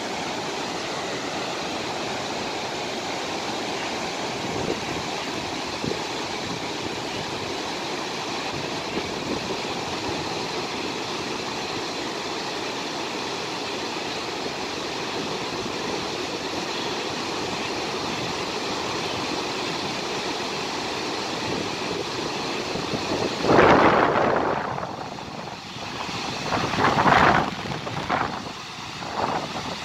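Steady roar of a large waterfall in flood, a wide river pouring over a cliff into a spray-filled gorge. A louder, rougher swell of noise breaks in about three-quarters of the way through, followed by a few shorter ones near the end.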